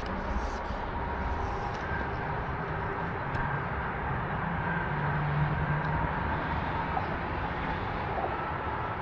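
Mountain stream water rushing steadily over stones, with a faint low hum mixed in.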